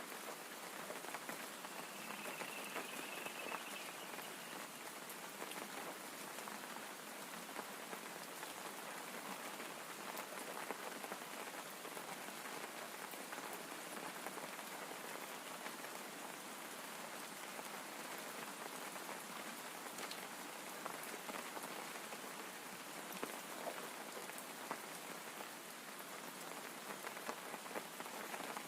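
Steady, faint rain falling: an even hiss with scattered small drop ticks.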